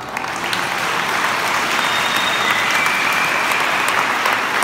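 Audience and panel applauding: many hands clapping together, starting just as the question ends and keeping up steadily.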